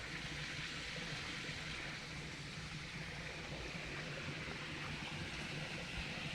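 Small river flowing steadily past a bathing spot, a continuous even rush of water.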